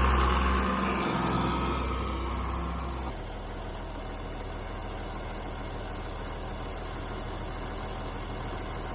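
John Deere tractor's diesel engine running steadily, fading over the first three seconds. After that a quieter, steady low engine hum continues.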